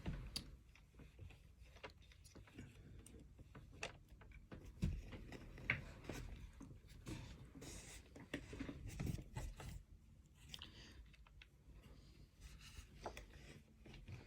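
Scattered light plastic clicks and rubbing as a phone charger's plug and lead are fumbled with while being pushed into a wall socket that they don't fit easily.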